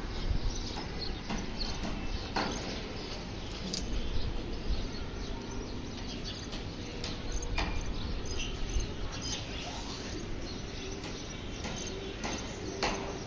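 Outdoor city ambience: birds chirping now and then over a steady low rumble, with a few sharp clicks.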